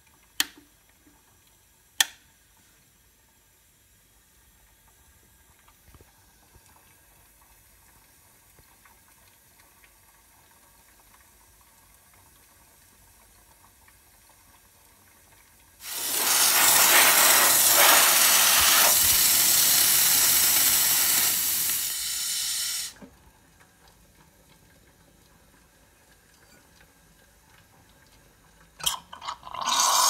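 Two sharp clicks of the rocker switches on a Zacconi Riviera Espresso lever machine. After a long quiet stretch, steam hisses loudly out of the machine for about seven seconds, eases slightly, then cuts off.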